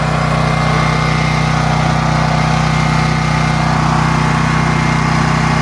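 Champion portable generator's small gasoline engine running steadily at its governed speed, an even hum with no change in pitch or level; the output reads about 61 hertz.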